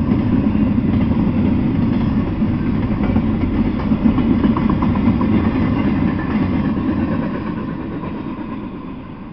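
Intermodal freight train's double-stack well cars rolling past on steel rails, a steady rumble of wheels and cars. The rumble fades over the last few seconds.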